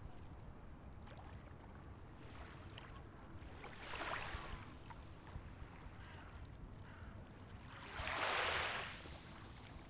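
Sea waves washing onto the shore, two of them breaking in swells of hiss, about four seconds in and more loudly about eight seconds in, over a steady low rumble.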